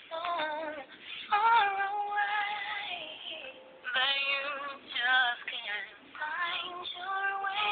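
A woman singing a slow melody in phrases, holding long notes, some with a wavering vibrato.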